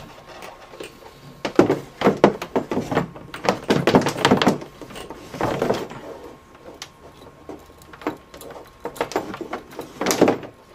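Handling noise from a monitor video cable being pulled across a desk and plugged in: scraping, clicks and knocks in two clusters, one through the first half and another shortly before the end.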